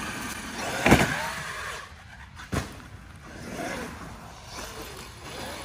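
Traxxas X-Maxx electric RC monster truck's brushless motor whining, rising and falling in pitch as it accelerates and spins its tyres on dry, grip-less ground. It fades as the truck drives off. A sharp thump about a second in is the loudest sound.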